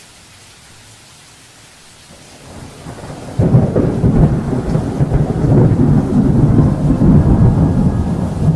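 Thunder during a heavy thunderstorm: a rumble swells from about two seconds in, breaks loud at about three and a half seconds, then rolls on deep and uneven.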